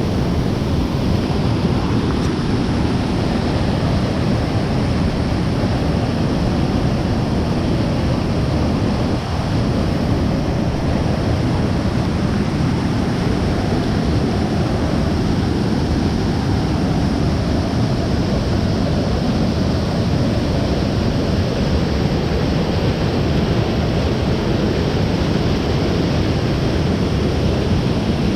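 Waterfall in full flow after heavy rain, a steady loud rush of falling water.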